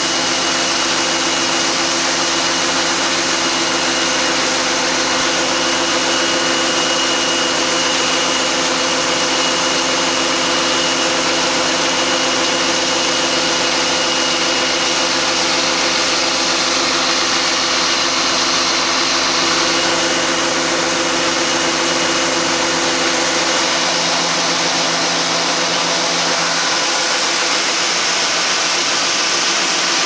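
John Deere combine running at harvest load while its unloading auger pours shelled corn into a grain cart: a steady engine drone with a thin high whine over a wide hiss. Some of the lower engine tones drop out about three quarters of the way through.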